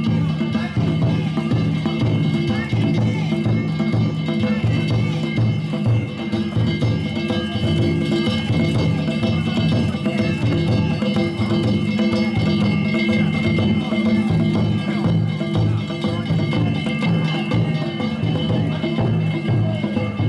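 Danjiri festival float music: taiko drums beaten in a fast, steady rhythm, with small hand gongs ringing over them.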